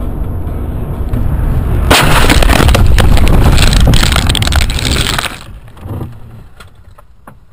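Road rumble inside a moving car, then about two seconds in a sudden loud car crash: a violent collision with crunching impacts and rattling for about three and a half seconds. It drops off to a few scattered knocks and clatters near the end.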